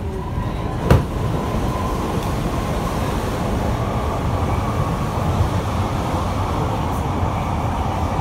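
Siemens C651 MRT train running, heard from inside the carriage: a steady rumble of wheels on track with a thin whine that slowly rises in pitch. A single sharp knock comes about a second in.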